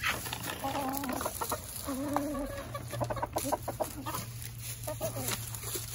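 Backyard hens clucking as they feed on scattered mealworms, with a few drawn-out low clucks about one and two seconds in. Short taps and rustles from pecking in dry leaves sound among the clucks.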